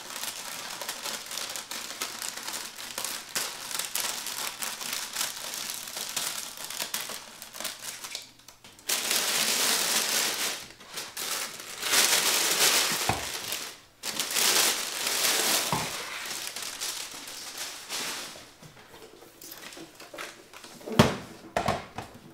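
Thin clear plastic bag being snipped with scissors and pulled off a cassette deck, crinkling and rustling throughout, with louder rustles in the middle. A few knocks, the loudest near the end, as the deck is handled on the wooden bench.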